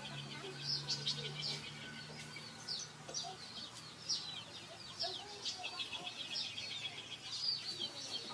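Small birds chirping over and over, each chirp short, high-pitched and falling in pitch.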